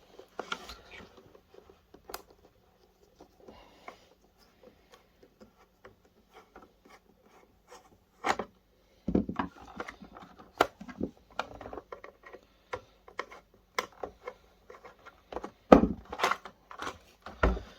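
A screw being worked out of a plastic projector casing and the casing being handled: faint scraping and light ticks at first, then a run of sharp clicks and knocks from about halfway, the loudest knocks near the end.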